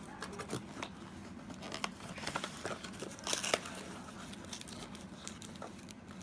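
A toy's cardboard box and its tape being pulled and torn by hand: a run of crinkles and small tearing crackles, busiest a little past the middle.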